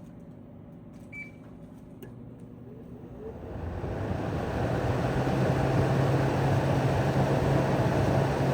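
The single fan motor of a 2009 GE 5,200 BTU window air conditioner (model AEW05LMS2) switched to medium speed, turning the condenser fan. It starts as a low hum, then about three seconds in a rush of wind builds up and settles into a steady blow over a low hum.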